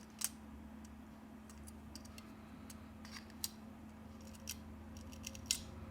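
Faint, scattered sharp clicks of a small pry tool unsnapping the rear camera flex connectors of a Samsung Galaxy A31, about six over the few seconds, over a steady low hum.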